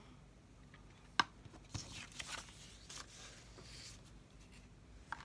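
Cardmaking papers and supplies being handled on a craft mat: a sharp click about a second in, then a few soft rustles and scrapes of paper, and a smaller click near the end.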